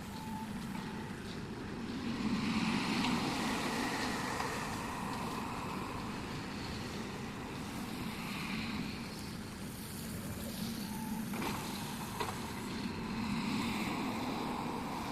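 Excavator's diesel engine running, swelling louder several times as it works, with a few light knocks in the later part.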